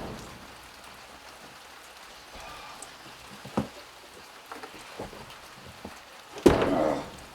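Steady rain falling, with a few scattered sharp knocks and one louder knock followed by a brief rough noise lasting under a second, near the end.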